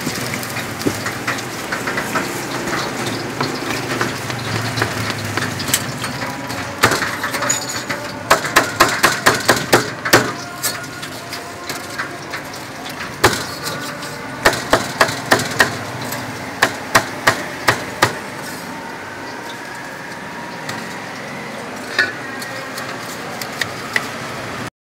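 A steel cleaver chopping a fried cutlet on a wooden chopping board, in quick runs of sharp chops about three or four a second, with a last single chop near the end. Before the chopping there is a steady sizzle of deep-frying oil.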